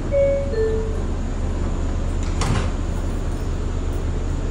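Subway car door chime, two falling tones, then the sliding doors close with a short rush of noise about two and a half seconds in, over a steady low hum.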